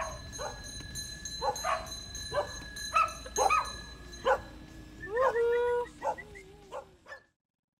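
Dog barking and yipping in short calls, with a longer whine about five seconds in; a low engine rumble underneath fades away, and everything cuts off abruptly near the end.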